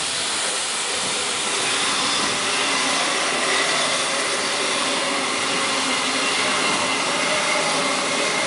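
A train running on the rails: a steady rushing rumble with a faint high whine held underneath.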